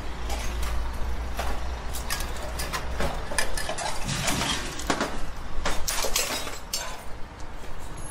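Irregular metallic clanks and clinks of steel scaffolding planks and pipes being handled and knocked together, over the low rumble of street traffic.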